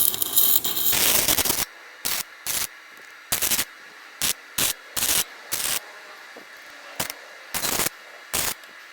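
Electric arc welder crackling in stop-start bursts, one of about a second and a half and then about a dozen short ones. The welder is filling in a bolt welded onto a broken exhaust manifold bolt, so that the broken bolt can be turned out.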